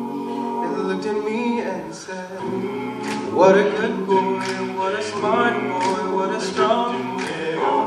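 All-male a cappella group singing in harmony, with a lead singer on a handheld microphone over sustained backing chords from the rest of the group.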